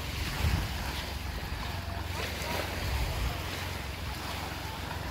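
Wind rushing over the microphone with a steady low rumble.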